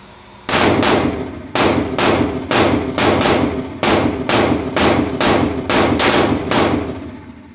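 Rapid gunfire at an indoor shooting range: about fifteen sharp shots over six seconds, two to three a second at an uneven pace, each ringing on in the room.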